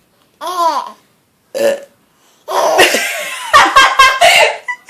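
A burp, then a baby bursts into a long bout of loud, pulsing laughter from about halfway through.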